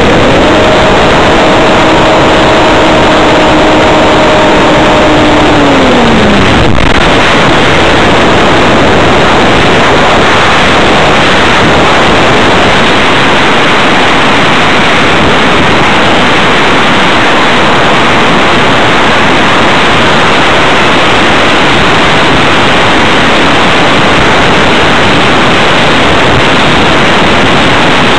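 Electric motor and 12x10 carbon propeller of an RC hotliner, heard from a camera on board, whining at a steady pitch, then falling in pitch and cutting off about six seconds in as the throttle is closed. After that, loud wind rush over the airframe and microphone as the model glides.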